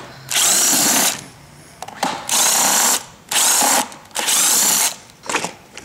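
Cordless drill running in four short bursts, backing the screws out of the jump starter's plastic case.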